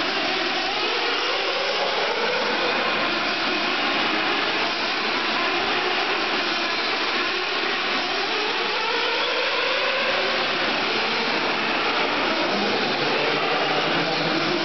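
Nitro RC cars' small glow-fuel engines running at high revs, a continuous buzzing whine whose pitch slides up and down as the cars accelerate and slow.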